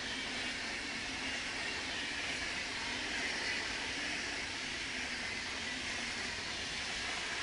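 Swiss Federal Railways (SBB) passenger train passing, its coaches rolling by in a steady rush of wheel-on-rail noise.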